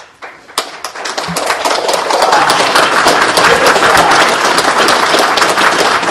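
Audience applauding: a few scattered claps at first, swelling within about two seconds into steady, dense applause.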